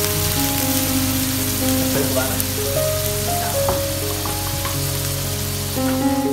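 Ground-wasp brood sizzling steadily as it is stir-fried in a pan, with background music playing over it.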